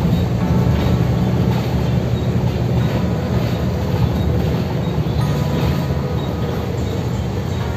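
Steady low rumble of a road vehicle in motion heard from inside: engine drone with road and tyre noise.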